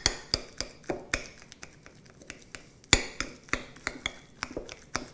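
Metal utensil clinking and scraping against a glass mixing bowl in irregular taps, about two or three a second, as hard-boiled egg yolks are broken up and pressed against the bowl's side; one clink about three seconds in is louder than the rest.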